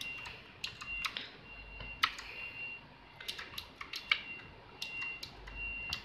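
Mechanical keyboard keys pressed one at a time at an irregular pace, each press a sharp click, as the backlight mode is switched. A high-pitched beep repeats in short pulses behind the clicks.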